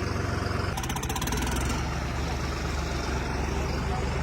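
Heavy vehicle diesel engine idling steadily with a low rumble. About a second in there is a brief, fast, high-pitched ticking rattle lasting about a second.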